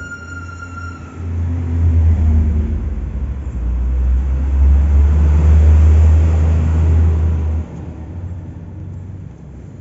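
Low rumble of a passing motor vehicle, swelling about a second in and dropping away sharply about two seconds before the end. A brief high-pitched beep sounds at the start.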